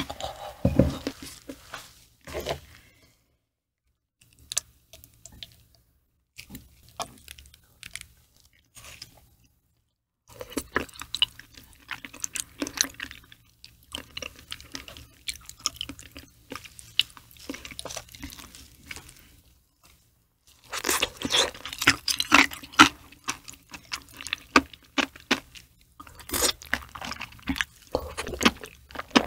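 Close-miked ASMR chewing of raw liver: soft, clicky mouth sounds that come in bursts, with a couple of short pauses between bites.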